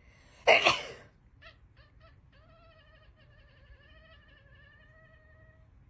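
A person sneezes once, short and loud, about half a second in; then a cat answers with a few short chirps and a long, wavering meow that stops near the end.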